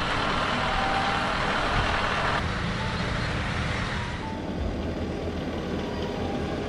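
A tractor-drawn tulip topping machine running: a steady engine and machinery rumble, changing character about two and a half seconds in and again about four seconds in.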